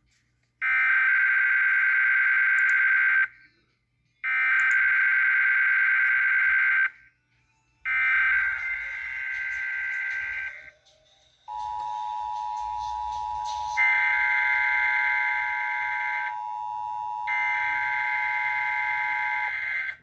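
Emergency Alert System SAME header: three bursts of warbling digital data tones, each about two and a half seconds long with short gaps between them, followed by the EAS two-tone attention signal, a steady dual-pitch tone (853 and 960 Hz) lasting about eight seconds. Two more bursts of the data tones sound over the attention signal, near the middle and near the end.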